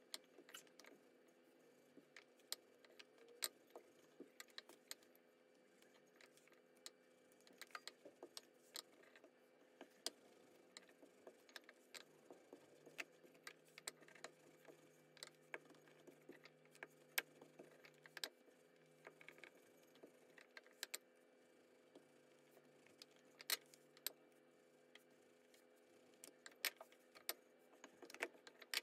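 Long thin wooden rolling pin working a sheet of noodle dough on a countertop, with irregular light clicks and taps as the pin and hands knock against the surface, over a faint steady hum.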